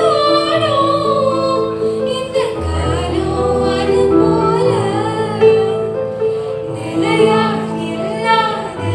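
A woman singing a Tamil film melody live, with electronic keyboard accompaniment holding sustained chords beneath her voice.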